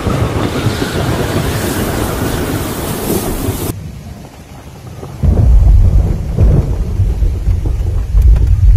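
Thunderstorm with heavy rain pouring down. After a cut about four seconds in, the rain's hiss drops away, and from about five seconds a loud, low, rolling rumble takes over.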